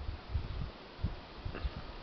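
Wind buffeting the microphone: irregular low rumbles and soft thumps over a faint hiss.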